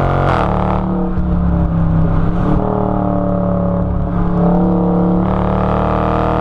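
Dodge 5.7-litre Hemi V8 engine and exhaust under way while driving, the revs climbing and dropping as the car accelerates.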